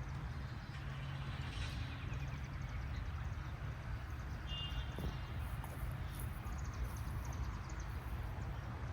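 Outdoor background noise: a steady low rumble, with a short high chirp about four and a half seconds in.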